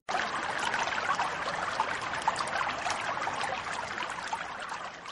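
Small waves washing onto a sandy beach, a steady fizzing wash of water that fades out toward the end.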